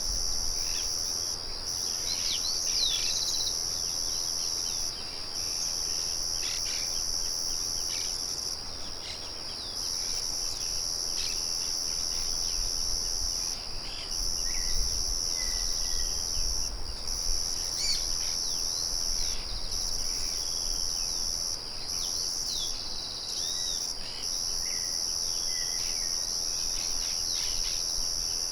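A chorus of crickets trilling steadily at a high pitch, dropping out briefly every few seconds, with scattered short bird chirps and calls over it. A low rumble runs underneath.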